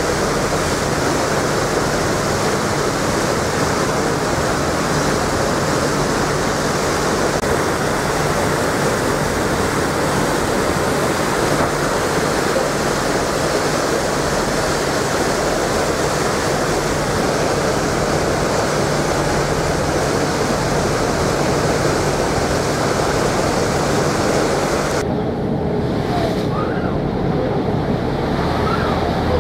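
Steady rush of wind on the microphone and churning wake water from a moving ferry, over a low steady hum from the ship's engines. About 25 seconds in the high hiss cuts off suddenly, leaving the water and engine hum.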